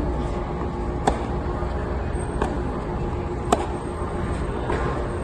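Tennis ball being hit back and forth on a hard court: four sharp pops of racket strikes and ball bounces, a little over a second apart, with the second and fourth loudest. A steady low rumble runs underneath.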